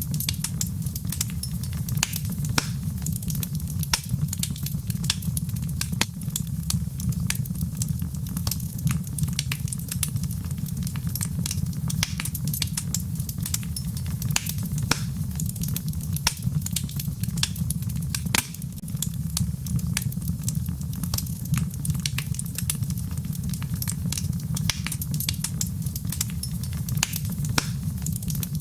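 Wood fire crackling in a fireplace: many sharp, irregular pops and snaps over a steady low rumble of flame.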